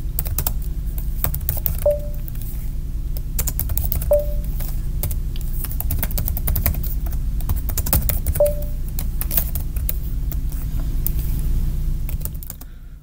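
Typing on a computer keyboard: irregular runs of key clicks over a steady low hum. Three short beeps come at about 2, 4 and 8.5 seconds.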